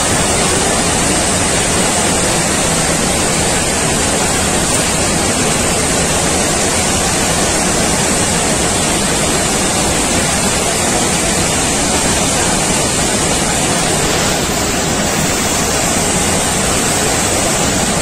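Waterfall pouring over rock ledges into a pool: a loud, steady rush of falling water.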